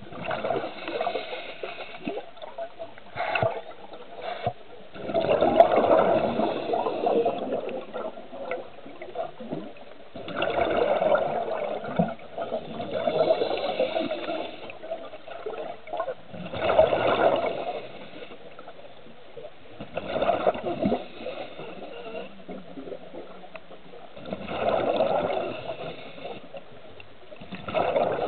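Muffled water noise heard through an underwater camera, swelling into a louder rush of water and bubbles every four to five seconds.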